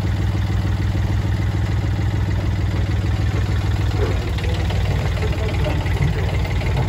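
Engine of a Watanabe tracked mini dumper running steadily with a fast, even beat; its note shifts slightly about four seconds in.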